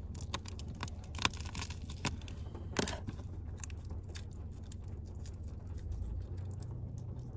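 A garlic clove being peeled by hand: the dry papery skin crackles and tears in a run of small sharp clicks, with a couple of louder snaps. A steady low hum runs underneath.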